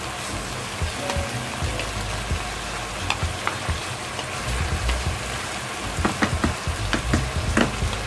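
Chicken and pork pieces with shredded ginger sizzling in a nonstick frying pan as a wooden spatula stirs them. The spatula taps and scrapes against the pan, with a quick run of knocks in the last couple of seconds.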